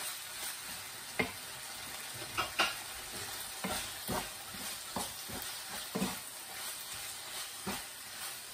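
Fish balls and sliced red chilli sizzling in oil in a non-stick frying pan as a wooden spatula stirs them. The spatula knocks and scrapes against the pan at irregular moments, roughly once a second, over a steady sizzle.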